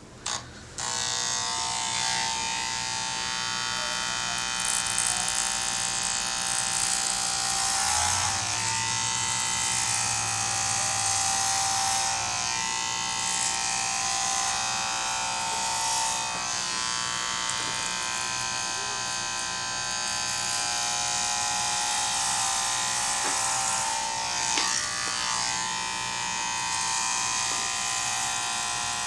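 Electric hair clippers buzzing steadily while shaving a head, the buzz changing briefly every few seconds.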